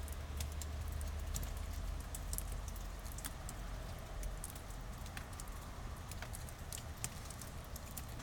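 Sporadic sharp ticks and crackles of ice in an ice storm, irregular and a few each second, over a low steady rumble.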